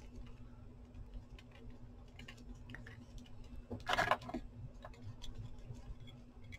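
Faint rustling and small ticks of paper and fabric scraps being handled. About four seconds in comes a louder, brief clatter as a metal stapler is picked up from the cutting mat.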